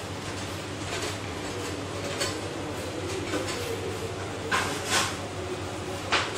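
Hands kneading soft flour dough in a bowl, over a steady low hum, with a few short knocks about four and a half and five seconds in and again near the end.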